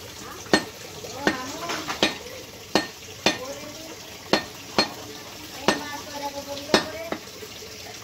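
A butcher's cleaver chopping goat meat and bone on a wooden block: about ten sharp chops, roughly one every three-quarters of a second, unevenly spaced.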